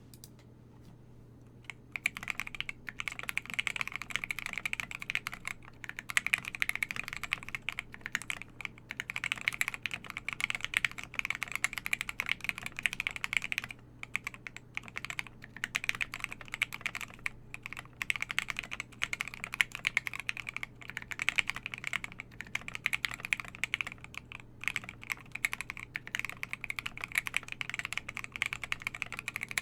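Fast, continuous typing on a custom mechanical keyboard: a Devastating TKL with lubed Banana Split linear switches, an FR4 plate and PBT KAT-profile keycaps, clacky keystrokes starting about two seconds in, with a few short pauses.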